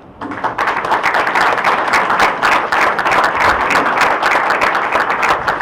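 Audience applauding: many people clapping at once, starting about a quarter of a second in and keeping up steadily.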